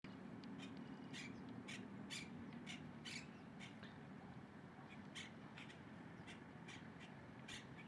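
Faint, short, harsh bird calls repeating about twice a second, over a steady low hum.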